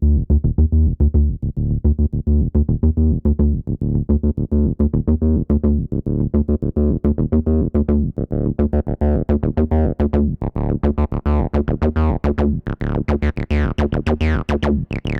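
Behringer TD-3, a Roland TB-303-style bass synthesizer, playing a fast acid bassline of short repeating notes, about six a second. Its resonant filter opens gradually, so the notes grow steadily brighter, and in the second half each note carries a falling resonant sweep.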